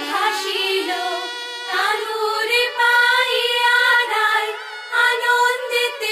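A high voice singing a Bengali devotional song melody, drawing out long bending notes with vibrato and few clear words.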